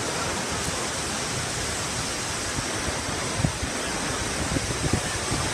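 Steady roar of torrential, wind-driven rain and storm wind, with a few brief low thumps of gusts buffeting the microphone.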